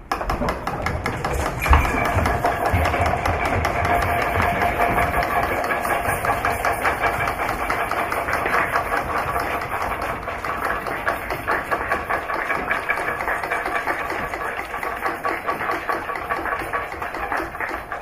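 Applause: a room full of people clapping steadily, which cuts off abruptly near the end.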